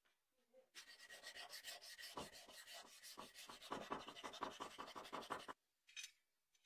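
Rapid back-and-forth rubbing by hand, several quick strokes a second. It starts about a second in and stops suddenly, followed by two brief taps near the end.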